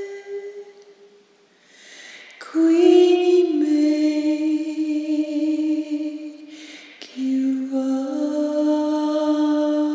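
A woman singing slow, long held notes with no accompaniment. The first phrase fades out about a second in; after an audible breath she sings two more long phrases, with another breath between them.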